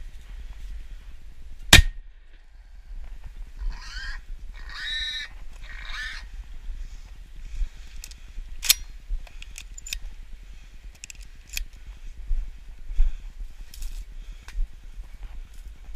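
A 20-gauge shotgun shot about two seconds in, followed by three short, high calls and a second, weaker sharp crack near nine seconds. Brush rustles and footsteps on dry ground run beneath.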